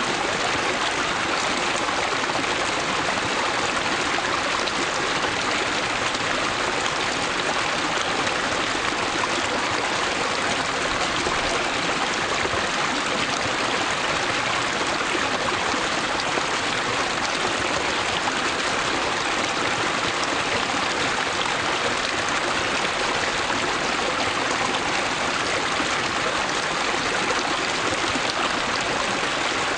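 Small rocky stream babbling and splashing as water spills over stones in a little cascade, a steady sound with no breaks.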